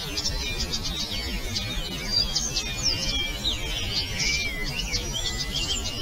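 Several birds singing at once in a woodland dawn-chorus fashion, overlapping whistles, trills and quick rising and falling notes, over a low rumble.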